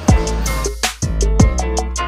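Music with a steady beat: heavy kick drum and deep bass, about one kick every eight-tenths of a second, with sharper percussion hits between.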